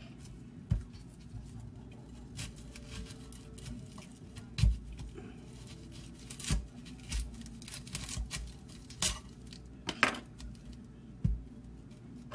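Dry onion skin crackling and tearing as it is peeled off by hand, with a string of separate knocks and taps on the counter, the loudest about a third of the way in and again near the end.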